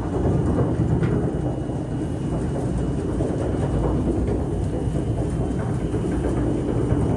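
Heavy processing machinery in a sawdust biomass-pellet plant running steadily: a dense, even low rumble with a faint steady whine above it.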